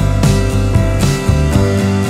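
Background music: a band track with guitar and a steady drum beat.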